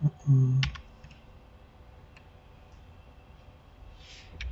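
Computer keyboard keystrokes and mouse-button clicks: a few sharp separate clicks, with a short low hum of a man's voice in the first second and a quick cluster of clicks near the end.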